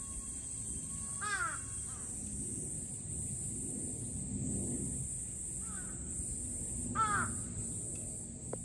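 A crow cawing twice, about a second in and again about seven seconds in, over a steady high-pitched drone of summer cicadas.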